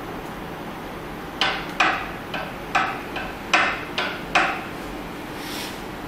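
About seven sharp, irregular knocks and clicks over three seconds, starting about a second and a half in, over a steady background hiss. They are a hard plastic LCD tester box and tools being handled and set down on a metal work plate.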